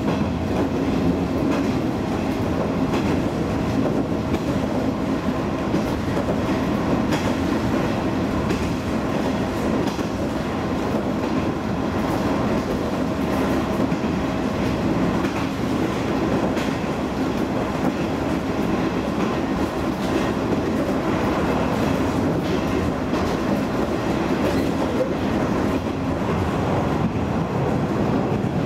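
Onboard running sound of a KiHa 47 diesel railcar under way: a steady rumble of engine and wheels on rail, with occasional rail-joint clicks. A steady tone in the rumble fades out about halfway through.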